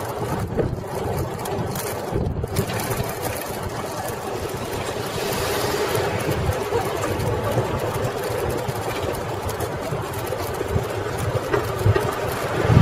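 Steady wind and road rumble on a microphone mounted on a moving bicycle, with a faint steady hum.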